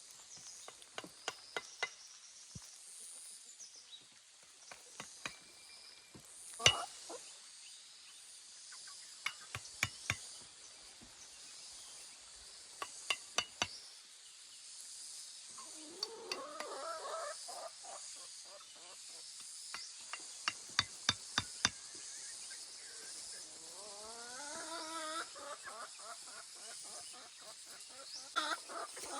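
Scattered sharp taps and knocks, some in quick clusters, over a steady high insect drone, with a fowl giving two drawn-out calls, one about halfway through and one later.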